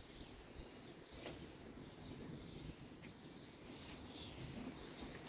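Quiet background with a few faint light clicks and faint bird chirps.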